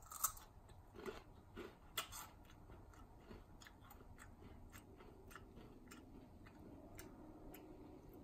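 Faint biting and chewing of a crisp fried seaweed and blue cheese snack: a few sharp crunches in the first two seconds or so, then softer scattered chewing clicks.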